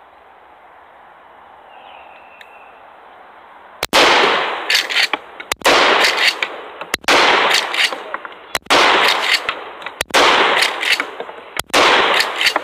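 12-gauge shotgun fired six times, starting about four seconds in, the blasts about one and a half seconds apart, each with a long echoing tail.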